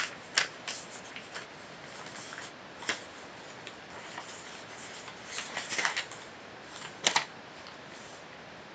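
A sheet of A4 paper being handled and folded by hand: scattered crisp rustles and crinkles, with a cluster about five and a half to six seconds in and the loudest crackle just after seven seconds.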